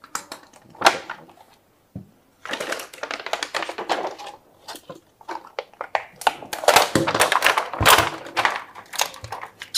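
Handling noise as a battery cell pack and its plastic case are moved on a wooden table: a sharp knock about a second in and another at two seconds, then crinkling and rustling of loose plastic heat-shrink film that is loudest near the end.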